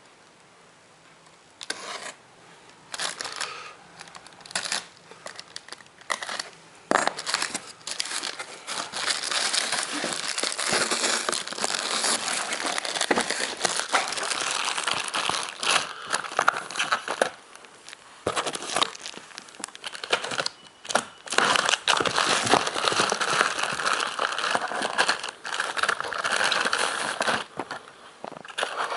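Packaging crinkling and rustling as it is handled and pulled open, with some tearing. The first couple of seconds are quiet, then there are short bursts, and from about a quarter of the way in the crinkling runs almost without a break.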